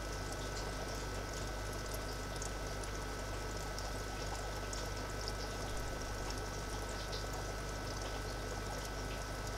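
Aquarium water trickling steadily over a low, constant hum, with faint tiny ticks scattered through it.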